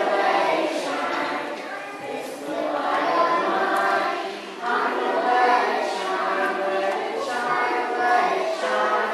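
A group of young children singing together as a choir.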